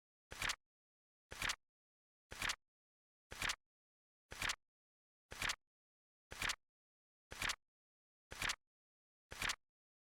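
Flip-clock sound effect: a card flapping over once a second, each flip a short double click, a light tap then a louder snap, ten times with dead silence between.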